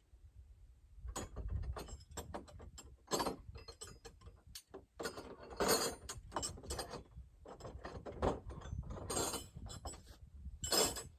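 Wrench and metal gate-hinge hardware clicking and clanking in irregular bursts, with ratcheting, as the hinge nuts on the gate anchors are worked.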